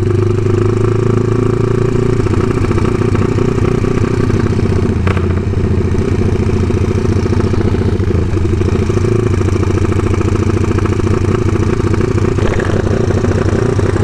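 Motorcycle engine and exhaust running steadily at low throttle while riding, with one sharp click about five seconds in.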